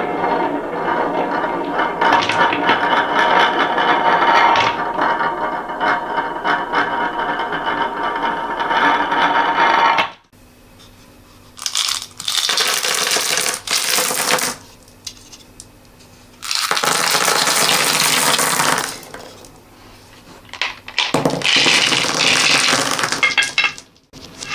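Many small hard beads and balls clattering and rattling, played in reverse: a dense, continuous clatter for about ten seconds, then four shorter bursts with quieter gaps between them.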